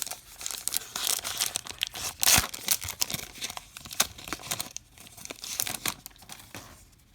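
Baseball card pack wrapper being torn open and crumpled: a crinkly, crackling tear, loudest about two seconds in and dying away near the end.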